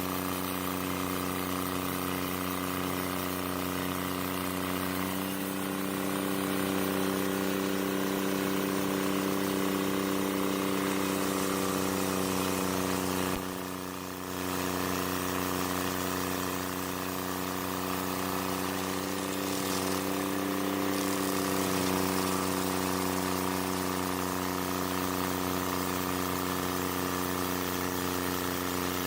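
Carlton 7015 stump grinder's engine running steadily with an even hum, with a short drop in level about halfway through.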